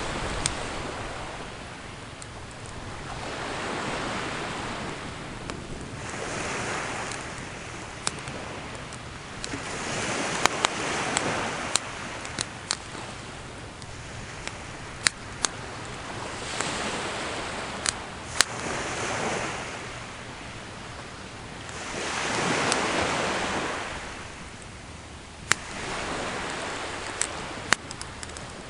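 Sea waves washing onto the shore, the rush swelling and fading every three to four seconds, with sharp pops and crackles from a wood campfire scattered over it.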